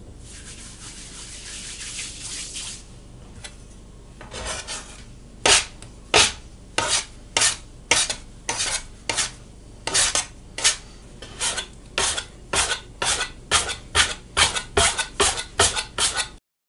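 Hands rubbing flour on themselves, then a metal bench scraper and hands working sourdough dough into a round on the floured counter. The shaping gives a run of short scraping strokes, about two a second, and this run cuts off suddenly.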